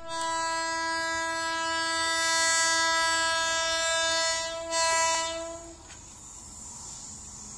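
Electric locomotive's horn sounding one long, steady blast of about five and a half seconds, the warning given on approach to a level crossing, then cutting off and leaving the fainter noise of the oncoming train.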